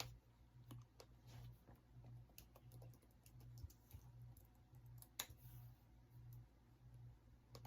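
Near silence: room tone with faint, irregular clicks and a faint low hum.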